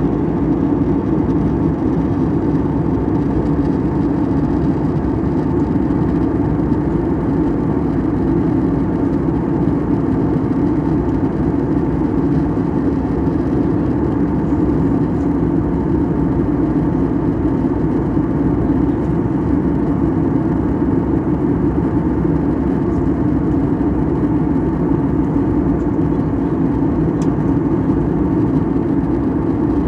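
Cabin noise of a jet airliner in cruise: the steady, even rumble of engines and airflow heard inside the passenger cabin.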